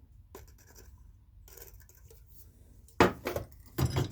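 Rusty metal hand tools knocking against each other as they are handled and set down: a light click about a third of a second in, then two loud clanks close together near the end.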